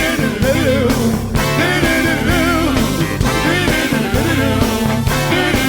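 Live funk band playing a groove, with a wavering, bending lead line over bass and drums.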